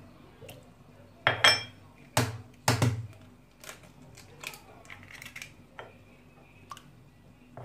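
A raw egg cracked against a glass mixing bowl: a few sharp knocks in the first three seconds, then lighter clicks and clinks of shell on glass.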